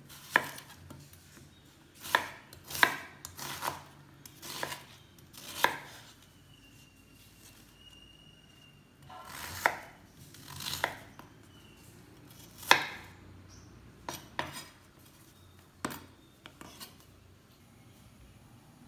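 Chef's knife slicing a small red onion on a wooden cutting board: about a dozen irregularly spaced cuts. Some cuts build briefly through the onion, and each ends in a sharp knock of the blade on the board.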